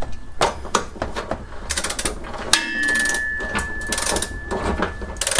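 A click-type torque wrench's ratchet is worked back and forth in short runs of clicks as it tightens a large trailer hitch mounting nut toward its 70 ft-lb setting. A steady high tone comes in about halfway through and holds until near the end.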